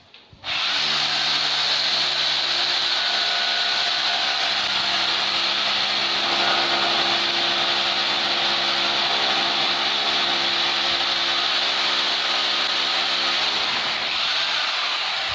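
Handheld electric power tool running steadily, a motor hum under a loud hiss, starting just after the opening and cutting off at the end.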